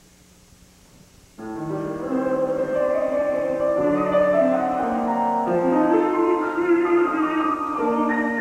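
A brief hush of room tone, then music starts abruptly about a second and a half in: piano accompaniment with a baritone voice, in held notes that move step by step.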